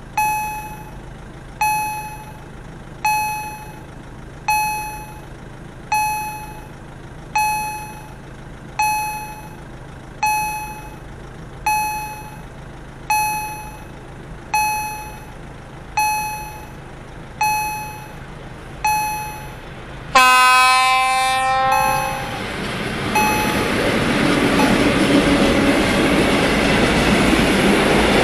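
A warning bell strikes once about every second and a half, each ding ringing out. About twenty seconds in, a locomotive horn gives a short blast that falls in pitch. Then the loud, growing rumble of a container freight train passing takes over.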